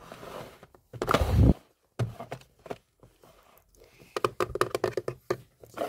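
Storage containers being handled: a brief rustling scrape about a second in, then a run of small clicks, taps and knocks as boxes and lids are moved and set down.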